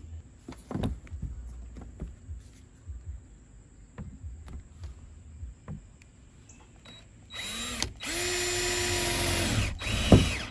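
Power drill with a step bit boring a corner hole through the van's sheet-steel roof. It runs with a steady whine for about two and a half seconds, stops briefly, then spins up again with a rising whine near the end. Before that there are only a few faint handling clicks.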